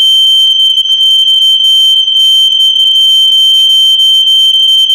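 A house alarm going off: one loud, piercing high-pitched tone held steady without a break.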